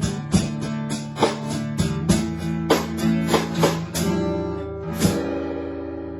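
Acoustic guitar playing strummed chords in a regular rhythm of strokes. The strokes thin out towards the end, and a chord is left ringing about five seconds in.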